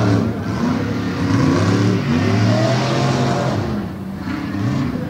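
Two modified tough-truck engines racing, revving up and backing off several times so that their pitch rises and falls through the turns.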